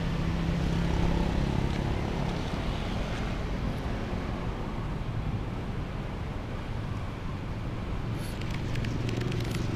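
Steady noise of nearby road traffic, a vehicle's low engine hum stronger in the first couple of seconds and again near the end, with a few faint clicks near the end.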